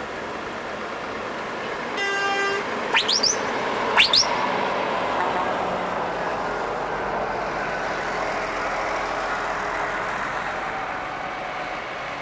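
A truck air horn sounds one short blast about two seconds in, followed by two quick sharply rising whistles, then a diesel truck's engine running as the truck drives past up close.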